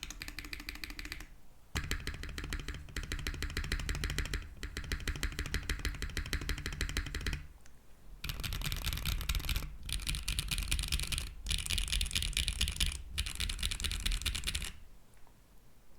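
Fast typing on a keyboard with HMX T-Rex linear switches in an aluminium plate with no foam: a dense, loud, high-pitched clacking of keystrokes. It breaks off briefly a few times, with the longest pause near the middle, and stops about a second before the end.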